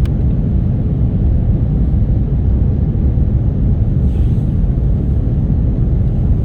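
Airliner cabin noise heard from inside the cabin: a steady low rumble of the jet engines and the airflow past the fuselage.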